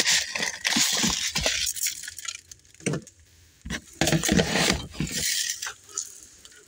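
Handling noise from a plastic tray of bird feed: an irregular run of clicks, taps and rustles as the tray and grains are moved about, quieting for about a second halfway through.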